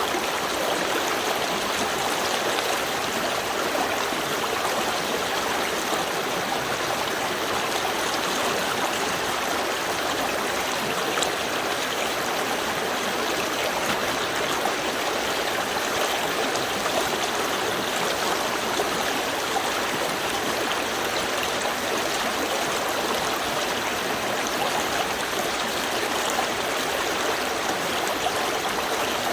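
Small river stream running over stones, a steady, even rush and babble of water.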